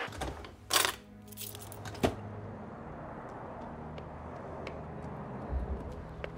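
A couple of loud rushing, scuffing noises in the first two seconds as a person hurries off, then a steady outdoor background with a low rumble of distant traffic, a few faint ticks and a soft thump near the end.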